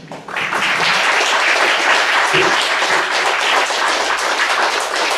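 Audience applauding: many people clapping together, breaking out just after the start and continuing steadily.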